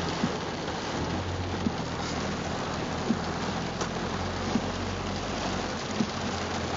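Rain falling on a car's roof and windshield, heard from inside the cabin as a dense steady hiss over the low hum of the car's engine. A light tick comes about every second and a half.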